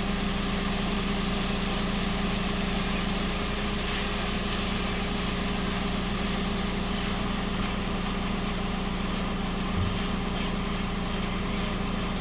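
A vehicle or machine engine idling steadily, a constant low hum, with a few faint clicks over it.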